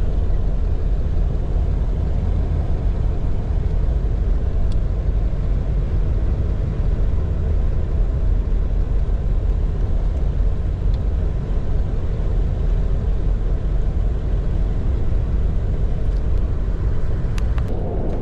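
Vehicle driving: a steady low road rumble, with a few light clicks near the end.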